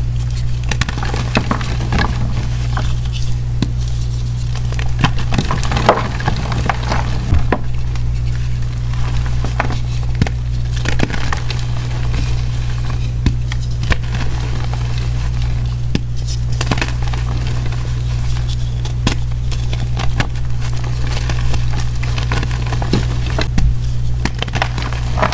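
Blocks of powdery gym chalk crushed and crumbled by hand: a continual run of dry crunches and crackles as the blocks break apart. Underneath is a steady low hum.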